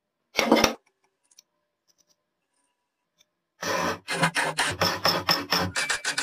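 A hand file rasping across a rusty steel part of an old hammer drill held in a vise, in quick back-and-forth strokes about four a second, starting a little past halfway. A single brief scrape of metal comes about half a second in.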